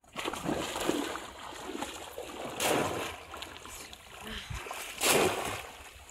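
Shallow river water splashing as a bamboo polo fish trap is plunged down into it, with two louder splashes about two and a half seconds apart and lighter sloshing from wading in between.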